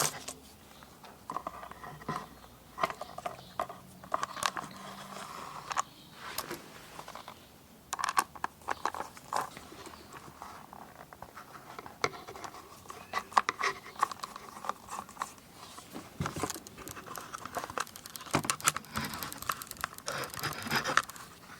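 Handling sounds from working on a Kydex holster and its aluminium strut, loosening and fitting the screws: irregular small clicks, taps and scrapes of plastic and metal parts.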